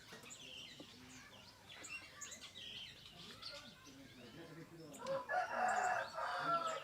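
Small birds chirping and whistling in short scattered calls, then, about five seconds in, a loud rooster crow lasting nearly two seconds.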